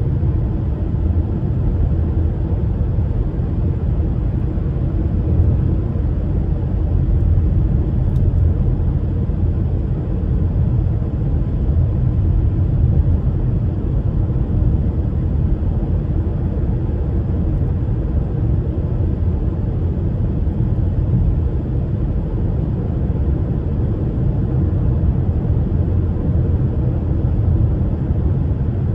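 Cabin noise of a car driving along a highway: a steady low rumble of tyres and engine heard from inside the car.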